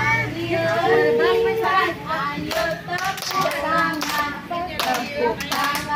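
Young kindergarten children clapping their hands to a sung clapping chant (tepuk), with the teacher's and children's voices chanting along. The claps get sharper and come more often in the second half.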